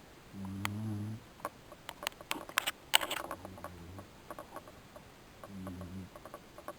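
Beagle snoring in its sleep: three low snores a few seconds apart, the middle one fainter. Between the first two comes a run of sharp clicks and taps, loudest about three seconds in.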